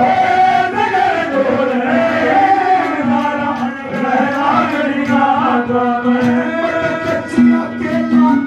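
Haryanvi ragni folk song performed live and played through loudspeakers: a singer's voice holding long, wavering notes over steady held instrumental tones and a regular drum beat.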